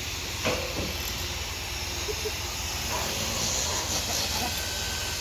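A steady hiss-like noise, with a short knock about half a second in.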